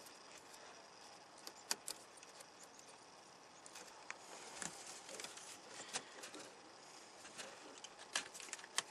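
Faint handling noises with scattered short clicks from the plastic wiring connectors of a truck door panel being plugged back in.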